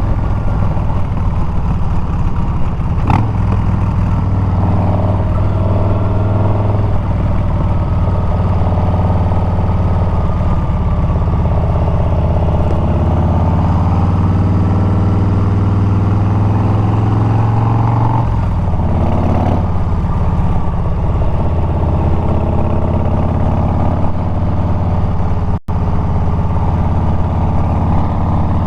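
Harley-Davidson Milwaukee-Eight 114 V-twin with Bassani straight pipes, running loud and steady while riding. The engine note shifts about two-thirds of the way through, and the sound drops out for a split second near the end.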